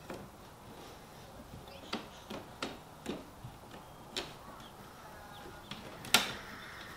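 Scattered sharp clicks and taps of a screwdriver and snap ring against an oval window frame as the snap ring is forced into its seat, about six of them, the loudest near the end.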